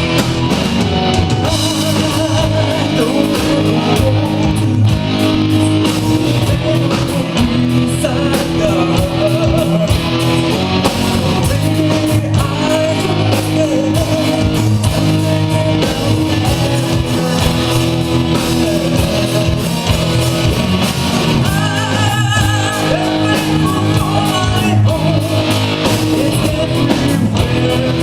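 A rock song played by a band: guitar chords with a sung vocal line over them.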